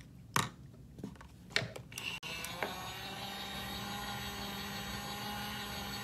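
Two light plastic knocks as makeup brushes are set into a mini washing-machine brush cleaner. Then its small electric motor starts about two seconds in and runs with a steady hum and whine.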